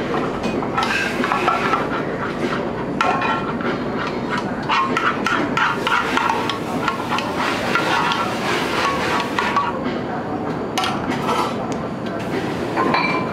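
A metal spoon stirring and scraping sauce in a frying pan, with irregular clinks of metal on the pan, over a steady background rush.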